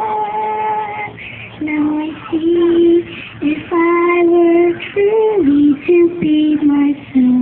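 A young girl singing a slow melody in long held notes, with short breaks between phrases.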